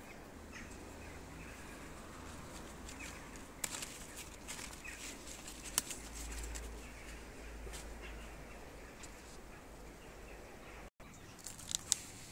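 Fig leaves rustling and a few sharp clicks of handling as ripe figs are reached for and picked from the tree, over a faint low rumble.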